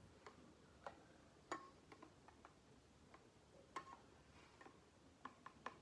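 Steel spoon clinking against a stainless steel bowl while stirring milkshake: about a dozen light, irregular clicks, a few ringing briefly.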